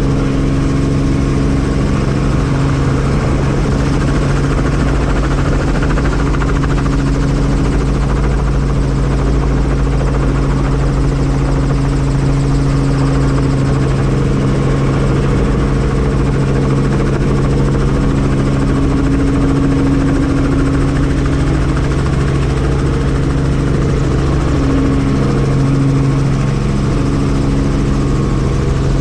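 Helicopter engine and rotor running steadily: a constant loud drone with a steady low hum and rumble.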